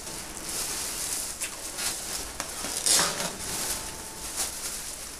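Clear plastic bag crinkling and foam packing peanuts rustling as hands dig through a cardboard box, with a louder crinkle about three seconds in.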